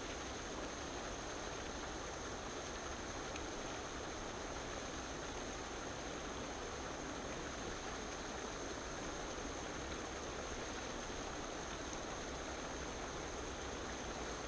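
Steady outdoor background hiss with a thin, constant high-pitched tone over it, unchanging throughout and with no distinct events.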